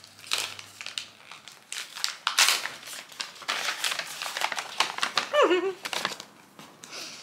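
Packaging crinkling and rustling in irregular bursts as a thoroughly wrapped parcel is unwrapped by hand. A short vocal sound falls in pitch about five and a half seconds in.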